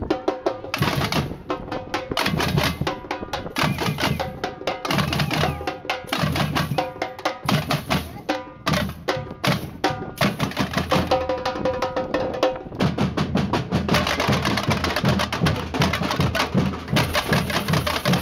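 Samba batucada percussion band playing: large bass drums, snare drums and other hand-held drums. Stop-start phrases at first, then from about two-thirds of the way through a continuous full groove with a steady low bass-drum beat.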